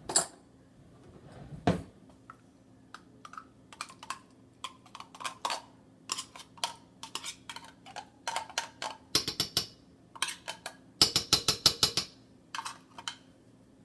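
A metal spoon scraping and clinking against the inside of a tin can as pork and beans are dug out. The clinks come as scattered taps, with two quick runs of rapid strikes about nine and eleven seconds in.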